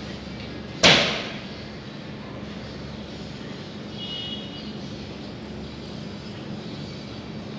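Iron sliding gate banging once as it is shut, about a second in; the bang dies away quickly.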